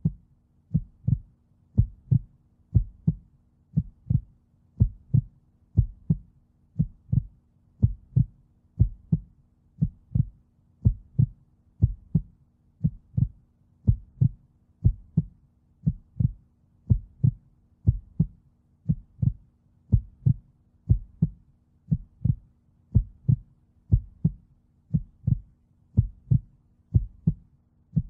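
A car's turn-signal or hazard-light ticker clicking steadily, about two clicks a second, over a faint steady low hum inside the stationary car's cabin.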